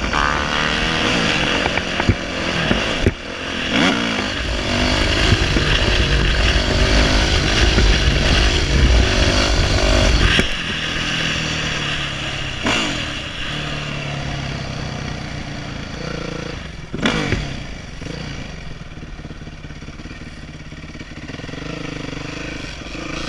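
Dirt bike engine under hard throttle, revving up and down through the gears, with a heavy low wind rumble on the helmet camera. About ten seconds in the throttle drops off, there are two short revs a little past halfway and again around two-thirds in, and the engine runs at low revs near the end as the bike rolls slowly.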